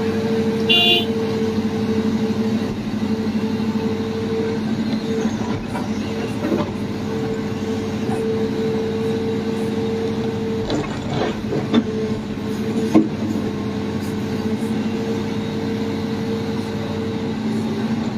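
Heavy diesel machinery running steadily with a constant drone. There is a short high beep about a second in and a few knocks near the middle.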